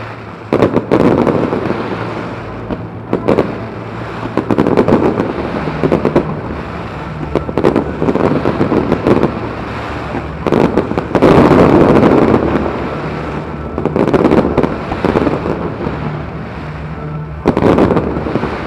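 Aerial fireworks bursting again and again, each burst followed by dense crackling, loudest a little past the middle.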